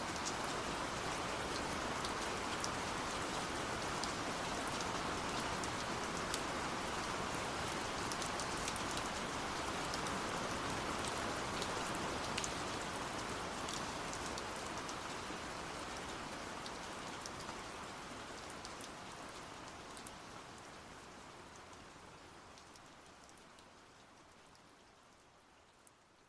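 Steady rain falling, a dense hiss with separate drops clicking close by. About halfway through, the rain starts to fade out gradually and is faint by the end.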